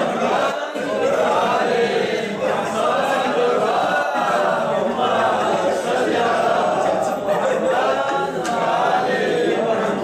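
A group of men chanting a Balti devotional qasida together, unaccompanied, their voices overlapping in a steady sung chant.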